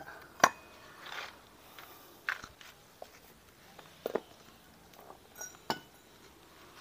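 Scattered sharp metallic clicks and clinks of hand tools and the metal parts of a scooter's rear pulley and clutch assembly being handled during disassembly. There are about five of them, the loudest about half a second in.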